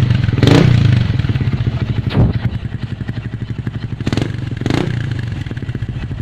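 Yamaha Sniper MX 135 single-cylinder four-stroke motorcycle engine idling loudly through a gutted 'kalkal' exhaust pipe, with short throttle blips about half a second in, near two seconds, and twice between four and five seconds.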